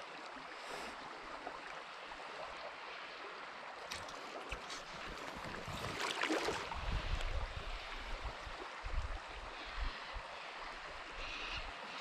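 Fast river water flowing steadily through a riffle, with a stretch of low rumble between about six and nine seconds in.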